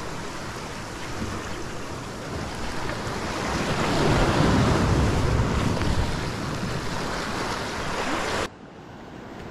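Sea surf washing over the boulders of a rock jetty, swelling to a louder surge about halfway through, with wind buffeting the microphone. The sound drops suddenly to a quieter hiss near the end.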